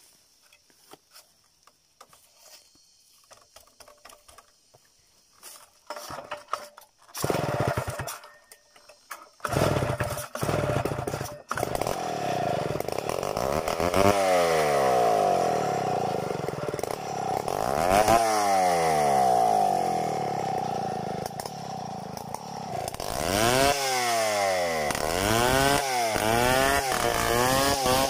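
Stihl 070 two-stroke chainsaw. After about seven seconds of near quiet it fires in a few short bursts, then runs steadily from about twelve seconds in, revving up and down again and again as it cuts into a log, with quicker rises and falls near the end.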